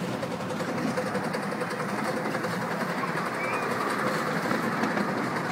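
A 7¼-inch gauge miniature railway train running along the track, heard from its front carriage: a steady rumble and clatter of the small wheels on the rails.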